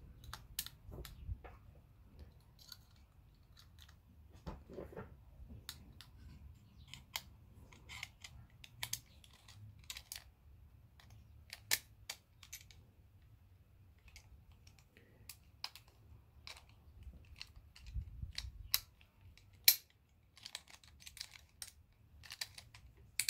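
Irregular small metallic clicks and taps as the lever tumbler plates of an open mortise lock are handled, shifted and seated in the lock case, with one sharper click a little under twenty seconds in.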